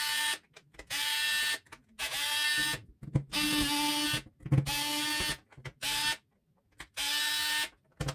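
Small cordless electric screwdriver whirring in short runs of under a second, about seven times, as its security bit backs out the tamper-resistant screws of a hot glue gun's plastic housing.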